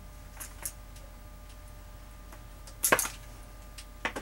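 A few small clicks and taps of wire and metal fittings being worked on, two faint ones near the start and a sharper clack about three seconds in, over a low steady hum.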